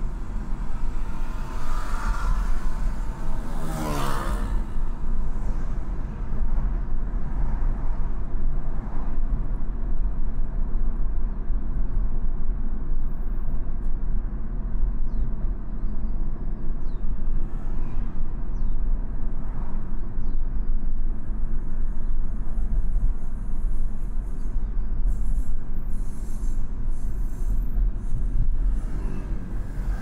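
Inside the cabin of a BMW 220i (G42) cruising: a steady low rumble of tyre and road noise, with its B48 turbocharged 2.0-litre four-cylinder running underneath. A scooter's engine passes with a falling pitch about four seconds in, and another near the end.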